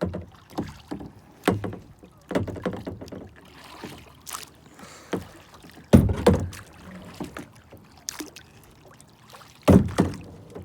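Kayak moving on the water: irregular splashes and knocks against the hull. The loudest come about six seconds in and again near the end.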